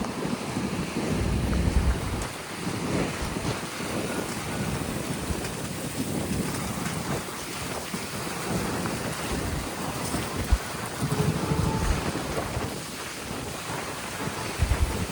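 Wind buffeting the microphone in uneven gusts over the wash of Mediterranean waves breaking on the beach.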